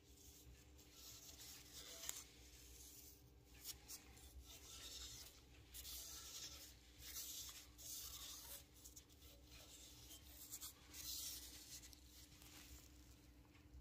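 Faint brushing and rustling strokes, about one a second, as a rubber-gloved hand sweeps fine aluminium milling chips across a metal plate and scoops them out of a freshly milled pocket, with a low steady hum underneath.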